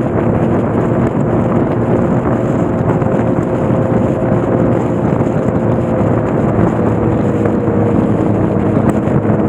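Motorcycle engine running at a steady pitch while riding, under a constant rush of wind noise on the microphone. The engine pitch eases down slightly about seven seconds in.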